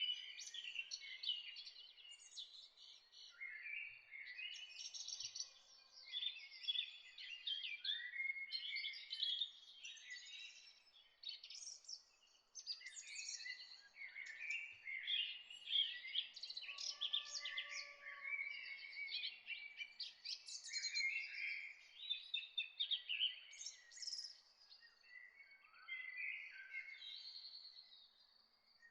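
Several small songbirds singing and chirping together in a continuous, overlapping chorus of quick high chirps and trills, over a faint steady hiss.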